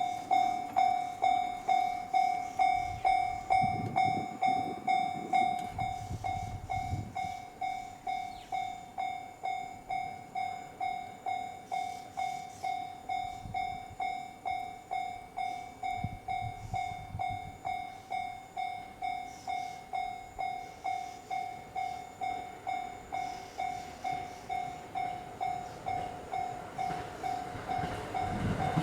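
Japanese railway level-crossing warning bell ringing in a rapid, even ding-ding, one pitched strike after another at about two to three a second. Near the end, the rumble of an approaching train starts to rise under it.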